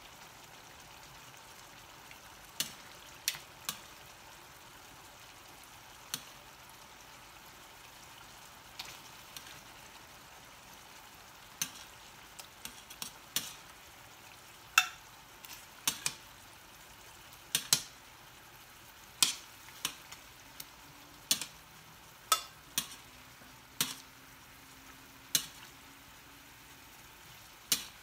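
Metal tongs clicking and tapping against a stainless steel skillet, a few times at first and then about once a second in the second half, over a faint steady sizzle of beef frying in oil.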